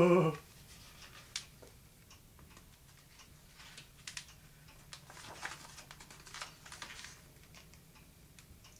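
Hardcover picture book handled and a page turned: faint, scattered paper rustles and a few light taps with quiet in between.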